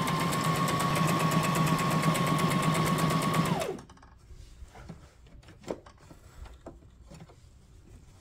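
Brother SM2700 sewing machine stitching at speed: a steady motor whine with rapid needle clatter, which winds down and stops about three and a half seconds in. A few faint clicks and rustles follow.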